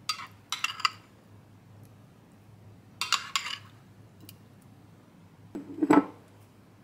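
Thick yogurt being poured from a ceramic bowl and spread with a small spoon over baked zucchini slices on a plate. There are three short bursts of wet plopping and spoon-on-dish clinks, the last and loudest about six seconds in.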